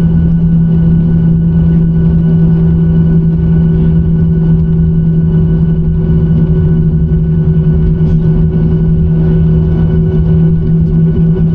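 Boeing 737-900ER's CFM56-7B jet engines running steadily: a constant low drone with a strong steady hum and fainter fixed tones above it, holding level without change.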